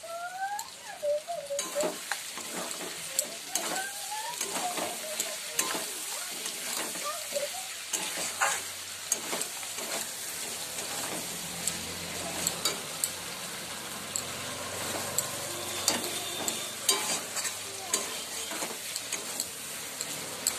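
A flat metal spatula stirring and scraping chicken curry in a metal kadai, with frequent clicks and scrapes against the pan over a steady sizzle of frying.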